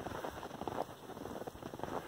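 Footsteps crunching in fresh snow, a crunch or two a second.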